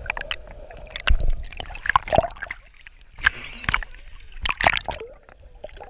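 Water splashing and sloshing around a camera at the sea surface as it dips under and comes back out, in irregular sharp splashes with stretches of gurgling.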